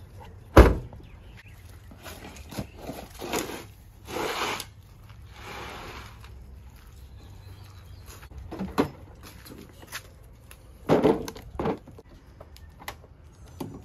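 An SUV liftgate slams shut with one loud thump about half a second in. Then a rubber-backed cargo mat rustles as it is laid out on the ground. Near the end come a few metal clicks and knocks as a wrench works on the Jeep's battery terminal.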